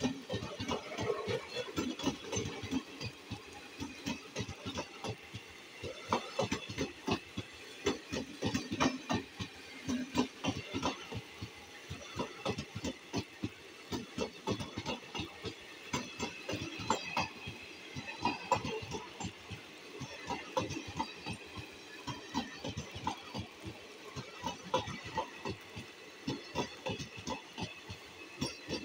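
ICF passenger coaches running past at speed, their wheels clattering on the rails in a rapid, uneven run of clacks over a steady high rushing hiss.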